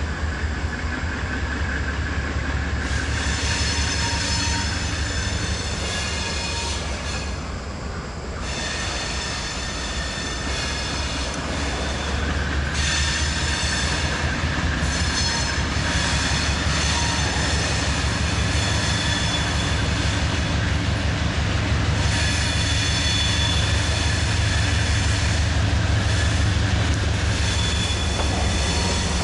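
Diesel freight locomotive approaching and passing, its engine droning low and growing louder. High-pitched wheel flange squeal comes and goes three times as the train rounds the curve.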